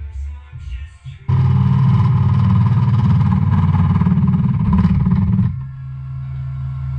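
Wood lathe running while a parting tool cuts into the spinning wooden blank, a loud steady cutting noise from about a second in. The cut stops about five and a half seconds in as the piece is parted off, and the lathe runs on with a steady hum.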